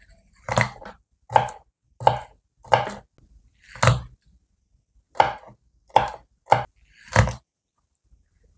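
Kitchen knife chopping garlic on a wooden cutting board: about nine separate, unhurried chops, the blade knocking on the wood each time.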